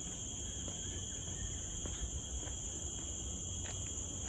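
Steady chorus of rainforest insects: a continuous shrill drone on two high pitches, one stronger and higher than the other, with a low rumble underneath.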